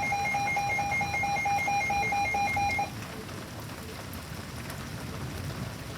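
Phone emergency-alert tone for a new tornado warning: rapid pulsed beeping that cuts off about three seconds in. Steady rain is heard underneath and carries on alone afterwards.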